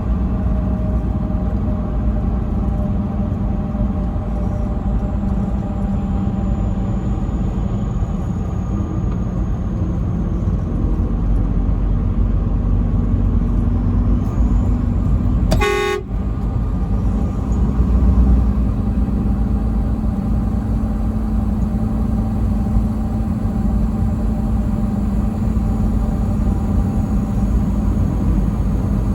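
Truck driving on the highway: a steady loud engine and road rumble with faint steady tones. About sixteen seconds in there is one brief, high-reaching blip.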